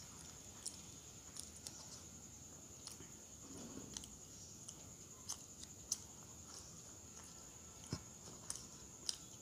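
Faint close-up eating sounds: a person chewing roti and curry, with scattered sharp little clicks and taps of fingers and food against a steel plate. A steady faint high-pitched whine runs underneath.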